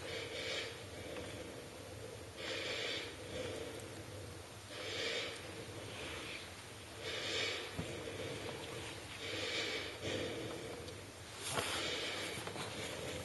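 A person breathing deeply in a slow, even rhythm, about one breath every two seconds, six in all.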